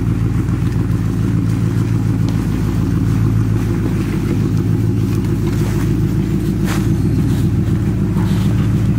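Lifted Chevy Silverado Z71 pickup on Interco Bogger mud tires crawling slowly along a leaf-covered dirt trail, its engine running steadily at low speed with a deep rumble. The tires rolling over dry leaves add a crackling noise, with a sharp crack about two-thirds of the way through.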